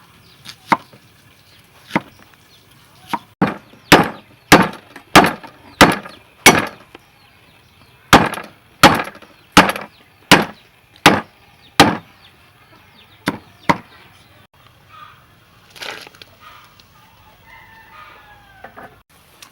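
About seventeen sharp chopping strikes on wood, coming steadily about every two-thirds of a second in runs, then stopping about 14 seconds in.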